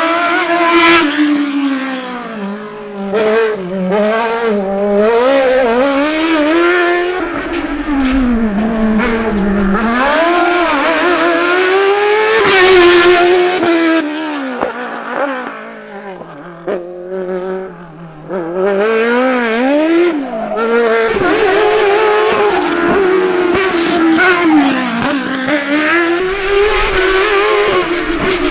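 Single-seater race car's engine revving hard, its pitch climbing and dropping again and again as the car brakes for the cone chicanes and accelerates out of them. It is loudest about halfway through.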